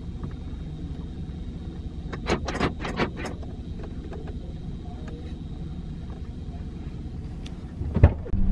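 Steady low rumble of a stationary car, heard from inside the cabin. A quick run of four clicks comes a little after two seconds in, and a sharp knock comes near the end.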